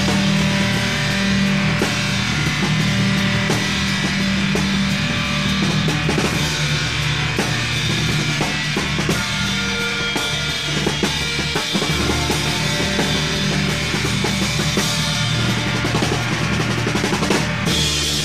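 Rock music driven by a full drum kit, with sustained bass notes under a dense, loud band mix.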